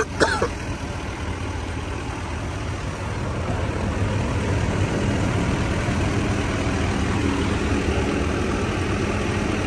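Truck engine idling steadily, a little louder from about four seconds in, with a short sharp chirp right at the start.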